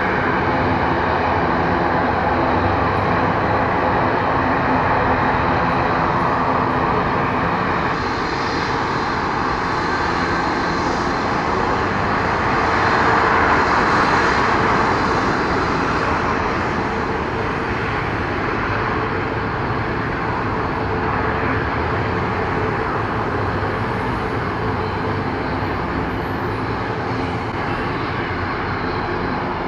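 Boeing 737 MAX 8's CFM LEAP-1B turbofan engines running at taxi power as the jet rolls past, a steady engine whine. It is loudest about halfway through and eases slightly as the aircraft turns away.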